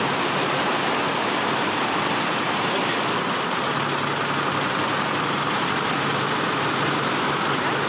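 Steady din of a garment factory floor: machinery such as sewing machines and ventilation running together as a constant, even noise with a faint low hum.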